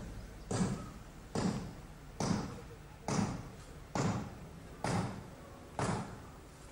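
Slow, even footsteps on paving close to the microphone: seven steps, about one a second.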